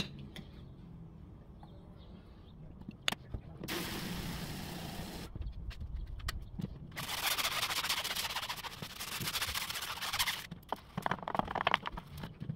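Garden hose spray nozzle jetting water onto an aluminum truck wheel and tyre in two bursts, the second one longer. Near the end there is a short spell of rubbing and knocking as the wet, soapy wheel is scrubbed by hand.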